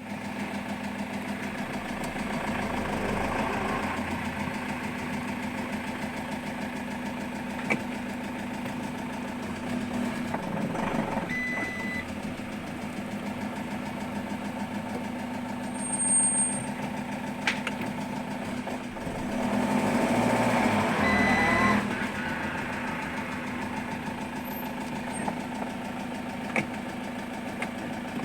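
Citroën Jumper 110 kW diesel engine running with a knock, mostly at a steady idle and picking up speed twice for a few seconds. The knock is the fault being recorded. A few separate sharp clicks come through over the running.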